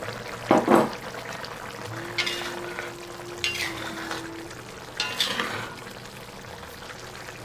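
Metal spatula scraping and pushing tofu around a wok as the mapo tofu sauce simmers with a soft bubbling. A few short scrapes come about two, three and a half and five seconds in.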